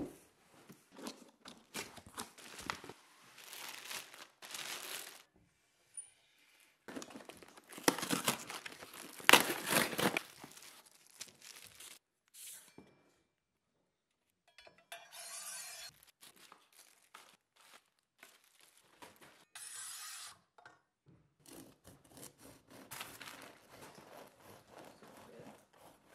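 Cardboard packaging being torn open and plastic wrapping crinkled while unpacking a kitchen knife block set, in irregular ripping and rustling bouts, loudest around a third of the way in. Near the end, a knife cutting through a crusty baguette.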